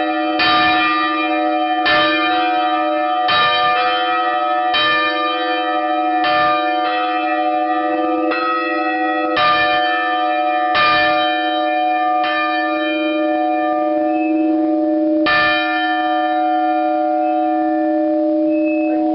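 Church tower bells hung for full-circle ringing, struck about every second and a half, with a longer gap about two-thirds of the way through. Each strike lands over a continuous ringing hum of overlapping held bell tones.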